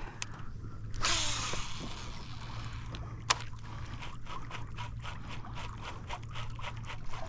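Water splashing beside a canoe about a second in, as a bass strikes a topwater frog. Then a sharp click, and light, fairly even ticking and scraping as the fishing reel is cranked and the fish is played.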